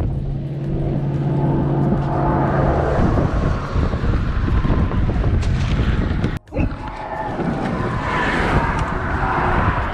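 Steady outdoor rumble of wind and traffic, with an engine hum in the first three seconds. The sound drops out briefly about six and a half seconds in.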